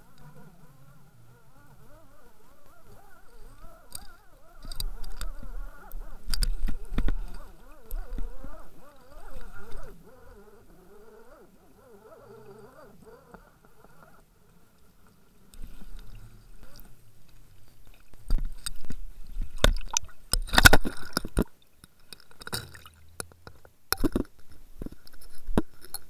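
Muffled knocks, rattles and scrapes picked up by an underwater camera in its housing on a fishing line as a hooked cod is hauled up, with low rumbles. A faint warbling whine stops about halfway through, and sharp knocks cluster near the end.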